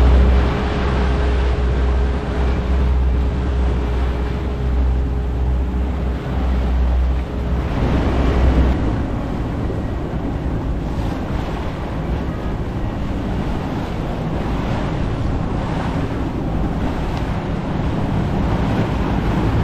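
Wind buffeting the microphone over water rushing and splashing past the hull of a moving tour boat. A heavy low rumble under it drops away about nine seconds in.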